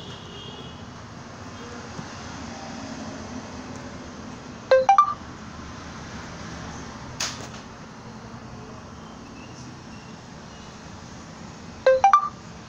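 Smartphone notification chime, a quick run of three rising notes, sounding twice about seven seconds apart as the mobile-money operator's prompt and then its payment confirmation arrive on screen. A single sharp click falls between them, over a steady low hiss.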